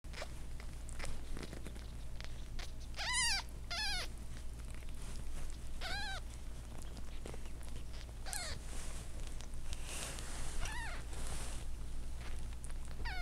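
Very young kittens mewing: about six short, high-pitched mews, each rising then falling in pitch. The first two come close together about three seconds in, and the rest follow every two seconds or so, over a low steady hum.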